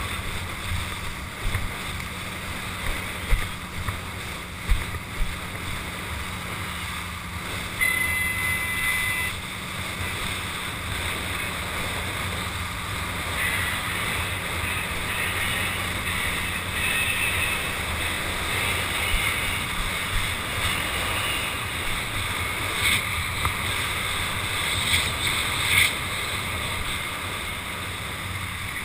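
Wind rushing over a helmet-mounted camera and water hissing and slapping beneath a rider towed behind a ski boat, with gusts thumping on the microphone.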